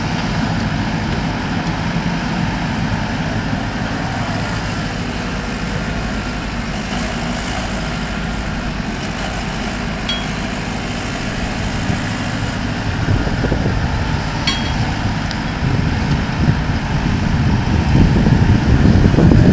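JCB 150X HD tracked excavator's 81 kW JCB EcoMAX diesel engine running steadily with hydraulic working noise as it digs and swings soil into a trailer. The engine grows louder under load over the last third. A couple of short clicks are heard partway through.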